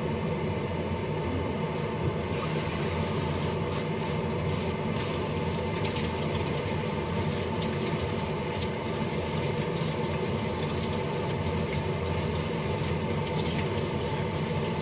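Kitchen tap running into the sink while small chillies are rinsed under the stream. The rush of water grows fuller about two seconds in.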